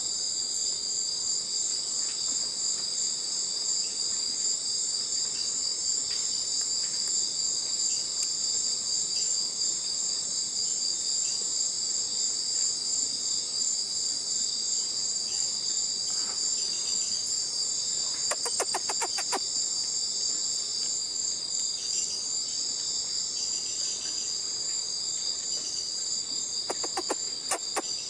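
Steady chorus of night insects such as crickets, a shrill pulsing trill at two high pitches. A quick run of sharp clicks cuts in about two-thirds of the way through and again near the end.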